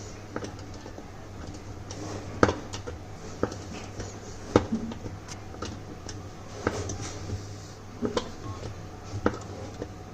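Metal clicks and knocks of screws and hand tools being worked on a washing machine gearbox assembly: irregular sharp knocks every second or two, over a steady low hum.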